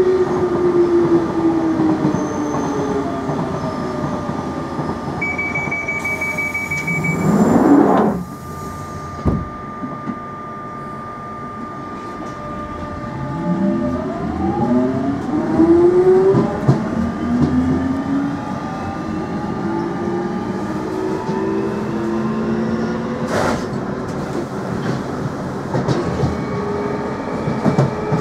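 Jubilee Line 1996 Tube Stock train departing a station. A short run of high pulsed door-warning beeps comes about five seconds in, then the doors shut with a loud burst about eight seconds in. From about thirteen seconds the traction motors' whine climbs in pitch as the train pulls away, with one sharp knock late on.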